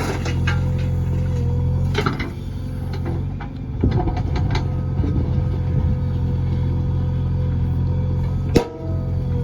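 Diesel engine of heavy machinery running at a steady speed with a constant whine over it. It is broken by a few sharp clunks, the loudest about eight and a half seconds in.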